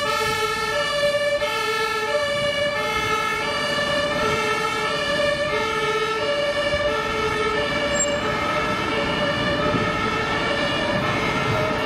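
Ambulance's German two-tone siren (Martinshorn), switching steadily between a lower and a higher tone about every three-quarters of a second, with traffic noise beneath.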